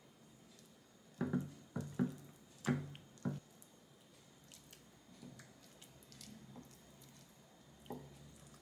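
Wooden spoon mixing curry into rice in a ceramic bowl: a cluster of about five knocks of the spoon against the bowl between one and three and a half seconds in, then quieter, softer mixing sounds and one more knock near the end.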